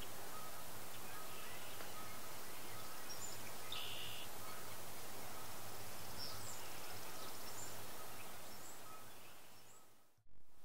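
Steady outdoor background noise, with a few brief, faint bird chirps through the middle. It fades down near the end, drops out for a moment, and comes back.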